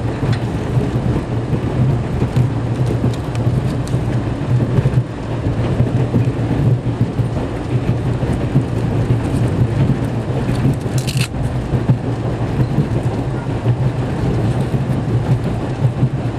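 Passenger train coach rolling along the rails, a steady low rumble heard from inside the car. A brief sharp high noise cuts in about eleven seconds in.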